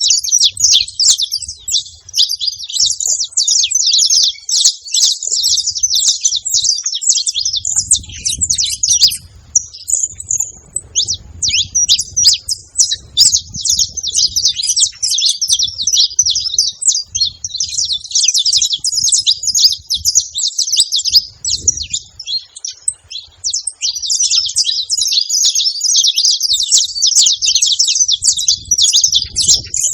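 A group of saffron finches chirping together in a dense, continuous stream of rapid high calls, with a short lull about ten seconds in.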